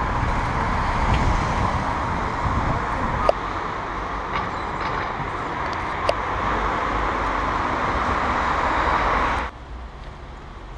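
Steady city street noise with road traffic, marked by two sharp clicks about three and six seconds in. It cuts off abruptly about nine and a half seconds in, leaving a much quieter outdoor background.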